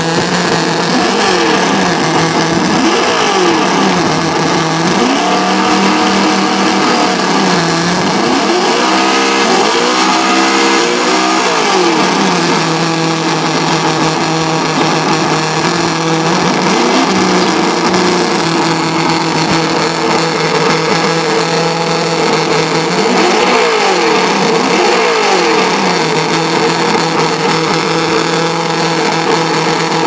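Simulated engine sound from a Traxxas On-Board Audio module's speaker in an RC Slash, idling steadily and revving up and back down a few times as the throttle is worked. The biggest rev comes about ten seconds in.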